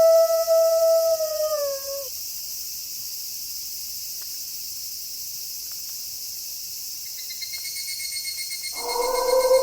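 A wolf howling: one long, steady note that drops in pitch and ends about two seconds in. A steady high hiss follows, a fast high trill joins around seven and a half seconds, and a second howl begins near the end.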